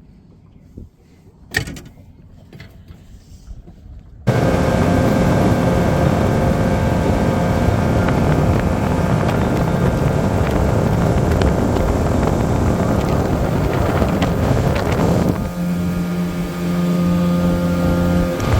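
A few quiet seconds with a single click, then an outboard boat motor suddenly comes in loud and steady under way, with a rush of wind and water. Near the end the rushing eases and a steadier low engine note comes through.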